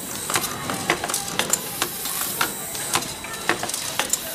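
Automated production machine for steel ball-bearing bed drawer slides running: sharp metallic clicks and clacks at uneven spacing, about three a second, over a steady high hiss.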